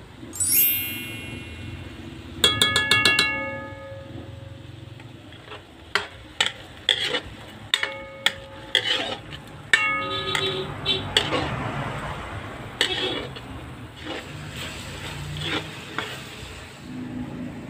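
Metal cooking utensil clanking and scraping against a pan while stir-frying, many sharp strikes that ring briefly, over a faint frying hiss. A rising chime flourish sounds about half a second in.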